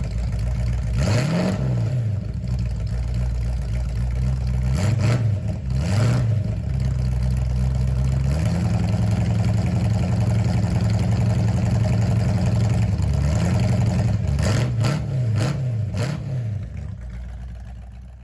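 Background rock music with heavy distorted guitar and bass and some drum hits, fading out near the end.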